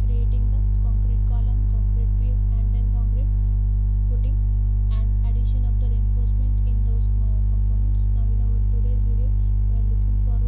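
Loud, steady electrical mains hum, a buzz at 50 Hz and its multiples, picked up by the recording microphone.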